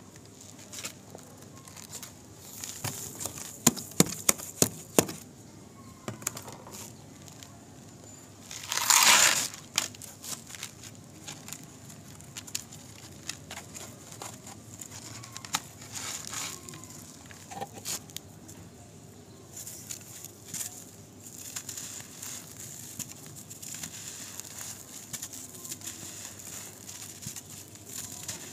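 Dry, gritty dirt crunching and crumbling. A run of sharp cracks comes a few seconds in, then a loud crunching rush about nine seconds in, then scattered lighter crackles.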